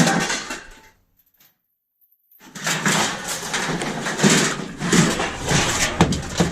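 Scrap metal being handled and dropped: a clank that dies away, then after a break of about a second and a half where the sound cuts out completely, rapid knocking and clattering of metal pieces.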